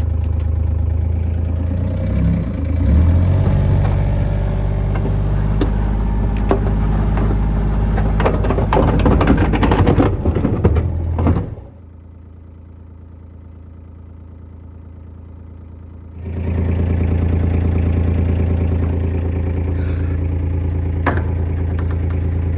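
Plow vehicle's engine running steadily, with a stretch of clattering and rattling in the first half. About halfway through the sound drops much quieter for some four seconds, then the engine hum returns.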